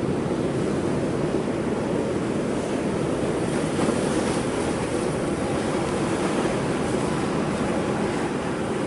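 Big ocean surf breaking on rocks, a steady, loud wash of noise with no single crash standing out.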